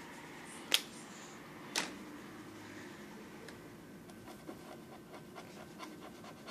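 Faint scratching and light tapping of a pencil drawing on paper, with two sharp clicks about a second and two seconds in.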